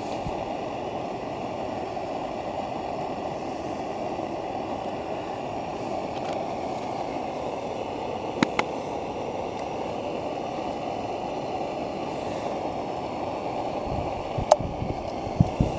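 Primus gas camping stove burner running with a steady rushing noise under a frying pan. A couple of sharp clicks come a little past the middle, and soft thuds near the end as slices of square sausage are laid in the pan.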